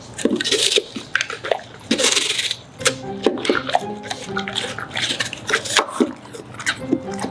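A large dog chewing a piece of citrus fruit with its peel, with wet smacking, clicks of the jaws and slurps. The fruit sits on a hard countertop.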